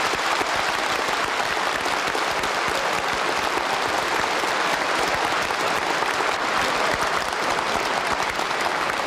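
Large audience applauding steadily, a dense, even clapping that holds at one level throughout.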